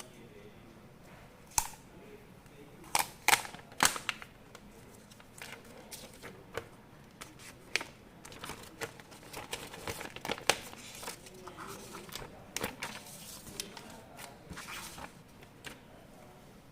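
Tablet packaging being handled by hand: several sharp clicks and knocks, then stretches of crinkling and rustling packaging.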